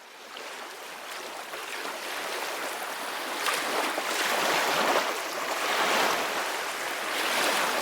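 Sea waves washing in, fading in from quiet and building in uneven swells.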